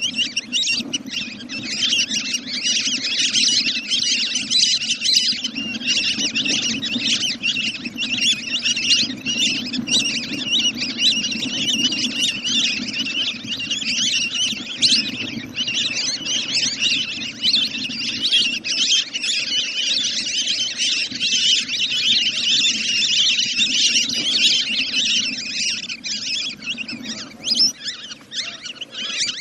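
Continuous rapid, high-pitched calls of duck-type waterbirds, played as a lure call for bringing birds down at night, over a steady low hum that stops near the end.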